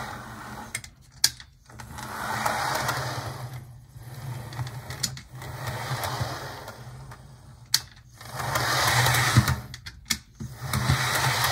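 HO-scale model electric locomotive chassis running on track: its motor and gears whir, swelling and fading as it passes close and moves away, with a few sharp clicks. It is running smoothly after sticking at first from stiction.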